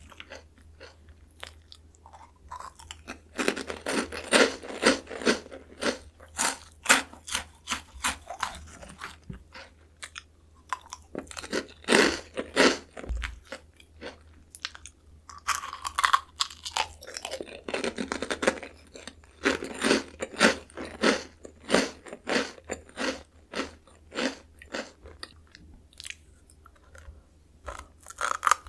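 Close-miked biting and chewing of Jagalchi seafood-flavoured snack crackers: crisp, sharp crunches come in quick clusters, with short pauses between mouthfuls.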